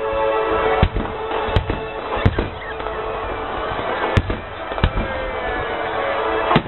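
Aerial fireworks bursting, about six sharp bangs spaced a second or so apart, over music.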